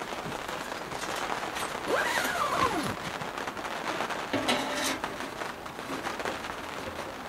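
Steady rain patter, broken by brief handling noises: a short squeak that rises and falls about two seconds in, and a scrape around four and a half seconds in.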